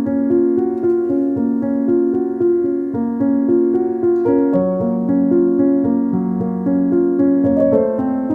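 Background music: a piano playing a gentle melody over sustained chords.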